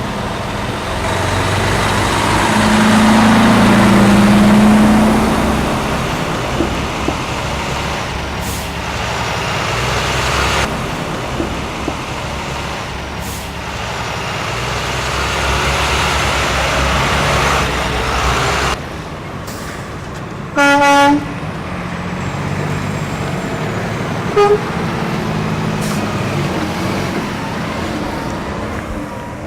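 Trucks running and moving off, with engine and road noise throughout. About two-thirds of the way through comes one loud horn blast of under a second, then a short toot a few seconds later.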